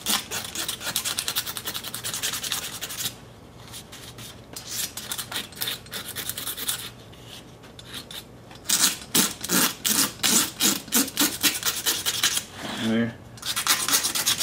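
A hand scraper rasping over a Briggs & Stratton 11 HP cylinder head in quick scratchy strokes, working off stubborn head-gasket remains and carbon. The scraping comes in several runs with short pauses between them, the loudest run about two-thirds of the way through.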